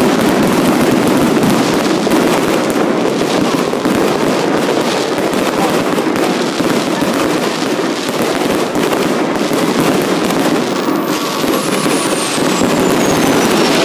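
Aerial fireworks going off in a dense, unbroken barrage of rapid bangs and pops.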